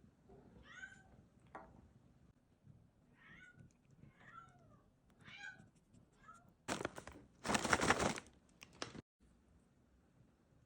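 Bengal cat meowing in a series of short, bending calls while at its food. About two-thirds of the way through come two loud bursts of scratchy noise.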